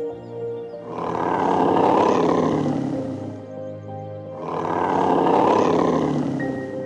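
Background music with a loud animal roar played twice. Each roar swells and fades over about two and a half seconds, and the two sound alike.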